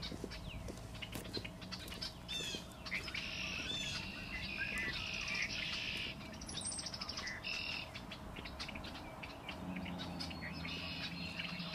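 Songbirds singing: repeated short trills and chirps, one after another.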